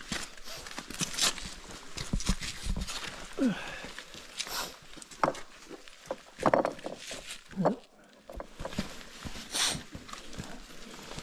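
Footsteps crunching and scraping over loose volcanic rock, irregular steps with stones knocking together.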